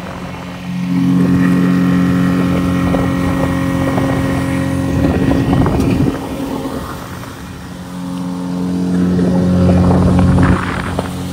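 Motorboat engine running at speed, a steady droning note. There is a rush of noise about five seconds in, then the engine eases off and picks up again about eight seconds in.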